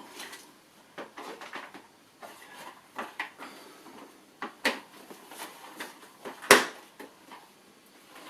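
Parts of a toy play shop being handled and fitted together: scattered light clicks and knocks, with a sharper knock about four and a half seconds in and the loudest one about six and a half seconds in.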